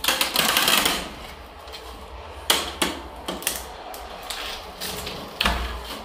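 Loud rustling scrape in the first second, then irregular sharp knocks and clicks: objects and debris being handled and knocked about.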